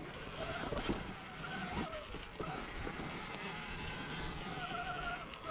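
Electric dirt bike motor whining, its pitch wavering up and down with the throttle, over the rush of wind and tyres on the wet trail.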